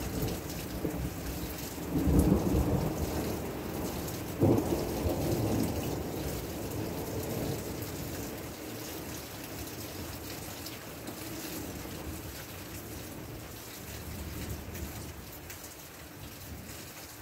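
Steady rain falling with a roll of thunder. A low rumble swells about two seconds in, a sharper peal comes a couple of seconds later, and then it fades slowly over several seconds while the rain hiss goes on.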